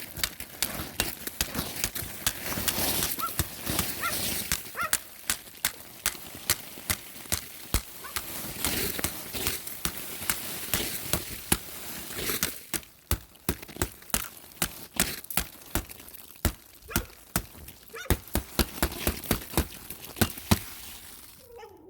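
Footsteps crunching across ice-crusted snow at a steady walking pace, with sharp crunches two or three a second. They stop just before the end.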